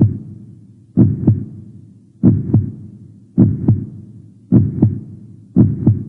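Heartbeat sound: slow, regular lub-dub double beats, about one pair every second and a bit.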